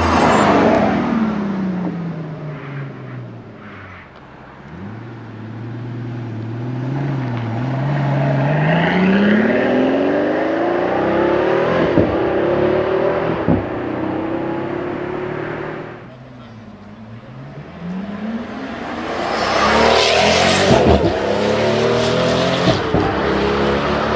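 Pagani Huayra's 6.0-litre twin-turbo Mercedes-AMG M158 V12 passing with its pitch dropping, then accelerating hard away, rising through the gears with a short crack at each upshift. After a brief dip it accelerates hard again, pitch climbing with more upshift cracks.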